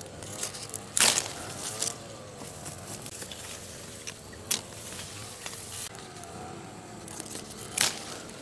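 Hand pruning shears snipping through citrus fruit stems, a few sharp cuts, the loudest about a second in and another near the end, over the rustle of leaves being handled.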